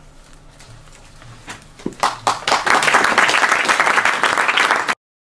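Audience applause: a few scattered claps about a second and a half in, quickly swelling into full, steady clapping that cuts off suddenly near the end.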